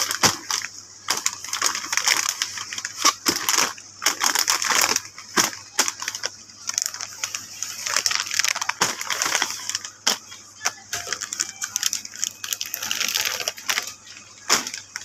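Crinkling and crackling of large Kopi Tarik instant-coffee pouches being handled and rubbed against each other, an irregular run of rustles and sharp crackles.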